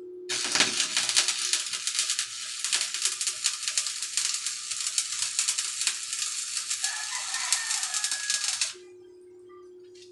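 Electric arc welding: the welding arc crackles and sizzles steadily for about eight and a half seconds, then cuts off suddenly as the arc is broken.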